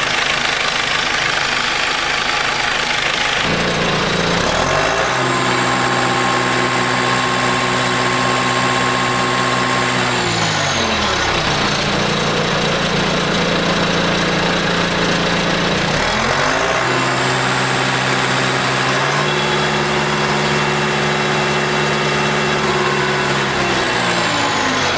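John Deere 6200 tractor's diesel engine idling, then revved up twice and held at higher speed for several seconds each time before dropping back to idle.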